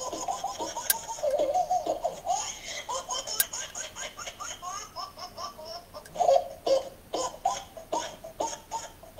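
High-pitched laughter in a run of quick, rhythmic bursts, played back through a tablet's speaker as the comic soundtrack of a clip.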